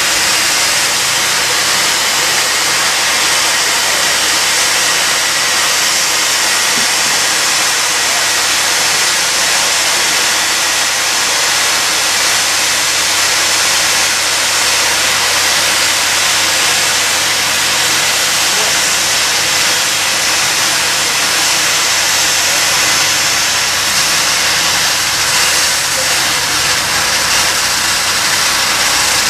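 Steam locomotive letting off steam in a steady, unbroken hiss.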